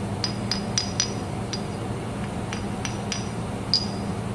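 A string of about ten light, irregular metallic clicks and taps, each with a brief high ring, over a steady low hum.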